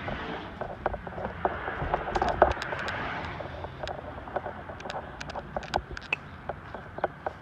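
Clatter of junk and trash being handled and moved: many irregular small knocks and clicks, with a louder stretch of scraping and rustling about two to three seconds in, ending in one sharp knock.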